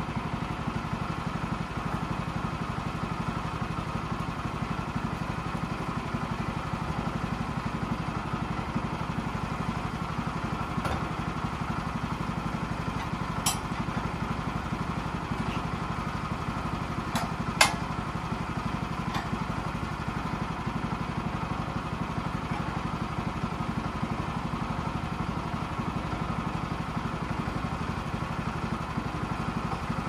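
Portable bandsaw sawmill's gasoline engine idling steadily. A few short sharp clanks break in around the middle, the loudest about 17 seconds in.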